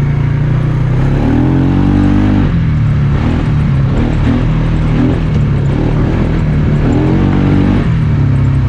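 Polaris Sportsman ATV engine running under way, its pitch rising twice as the throttle is opened, once about a second in and again about seven seconds in, each time dropping back to a steady run.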